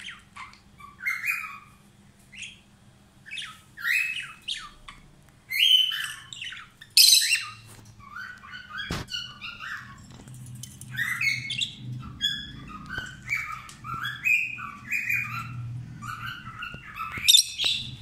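Lovebirds chirping and squawking in a cage: a long run of short, shrill calls, some in quick bursts of several. One sharp click about halfway through.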